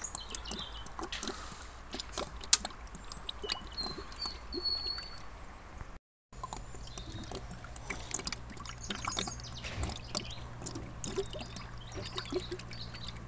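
Engine flush poured from a bottle into the engine's oil filler neck: a faint trickling and gurgling of liquid with small clicks. The sound drops out briefly about six seconds in.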